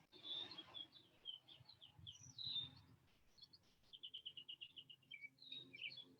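Faint songbird singing: short high chirps and down-slurred notes, with a rapid trill of about ten notes about four seconds in.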